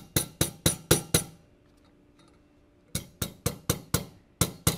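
Hammer tapping the plastic retainers home that hold Flexco BR fastener top plates on the installation tool's alignment bar. Sharp taps come about four a second: a run of six, a pause of over a second, then a second run of about seven.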